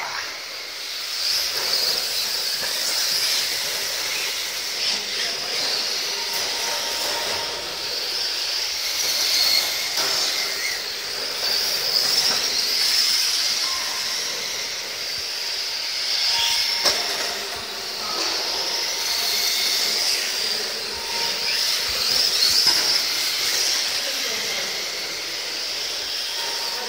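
Several Tamiya M-chassis electric RC touring cars racing on carpet: a high-pitched whine from their motors and gears that wavers up and down as they speed up and slow, with a few short knocks.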